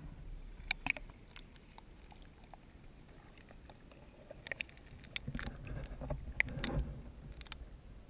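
Muffled water sloshing and scattered sharp clicks and knocks from a camera being handled underwater in a shallow stream. The middle is quieter; a cluster of clicks and low sloshing comes about five to seven seconds in.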